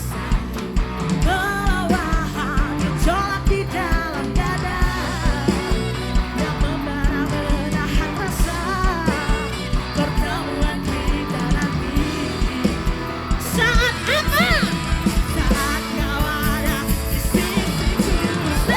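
A live band plays a rock-style song with a lead singer over a steady drum beat. The singer slides up to high notes about two-thirds of the way through.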